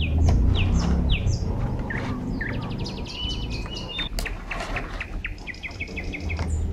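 Small birds chirping and calling, with short downward-sweeping calls and two quick runs of rapidly repeated notes, over a steady low rumble.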